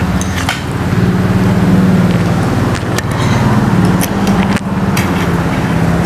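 A motor vehicle's engine running close by, a low steady hum that swells about a second in and holds. A spoon clinks on a plate a couple of times.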